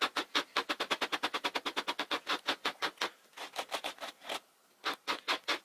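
Wire slicker dog brush raking through strands of acrylic yarn, brushing them out into faux fur, in quick short strokes about seven a second. The strokes grow fainter after about three seconds, stop briefly, then start again near the end.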